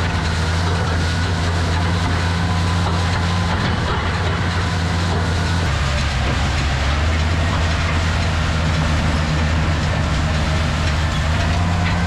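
Tractor engine running steadily as it pulls a wheel rake through corn stalks, with a constant rushing, rattling noise over the engine hum; the engine note shifts slightly about halfway through.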